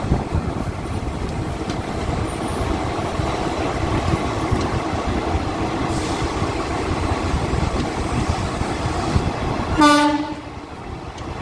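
18011 Chakradharpur Express passenger train rolling along a station platform, heard from an open coach door: a steady rumble of wheels and running gear. A short blast of a train horn comes about ten seconds in.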